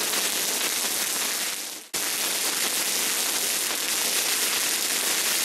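Ground firework fountain hissing and crackling steadily as it throws out sparks, cutting out for an instant about two seconds in and then going on at once.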